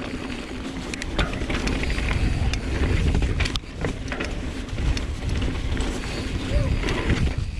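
Mountain bike riding a dirt trail: steady wind rumble on the microphone, with tyre noise and frequent clicks and rattles from the bike.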